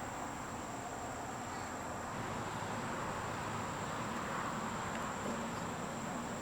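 Steady outdoor background hiss with a thin, continuous high-pitched tone running under it.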